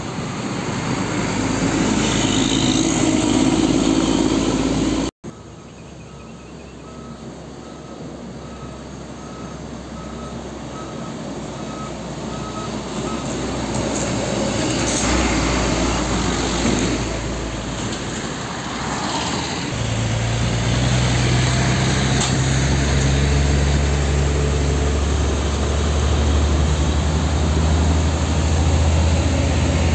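Heavy Hino 500 dump trucks with diesel engines running as they pass and queue close by. For several seconds a pitched beep repeats about twice a second. In the last ten seconds a truck engine rumbles loudly and steadily close by.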